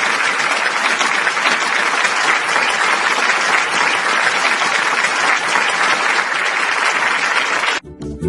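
Audience applauding steadily. Near the end it cuts off suddenly and is replaced by music with guitar.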